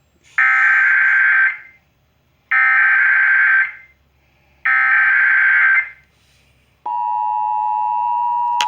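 Emergency Alert System SAME header: three identical bursts of digital data tones, each about a second long with a second's silence between, sending the alert's coded message to other stations. About seven seconds in, the steady two-tone EAS attention signal begins.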